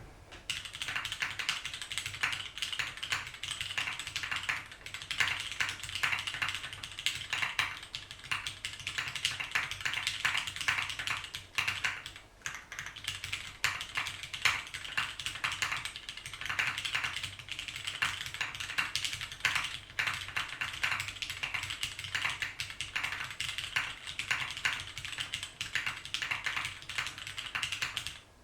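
Typing on a Sessanta HHKB-layout mechanical keyboard with vintage Cherry MX Brown switches on a carbon fibre plate: rapid, continuous keystrokes, with a brief pause about twelve seconds in.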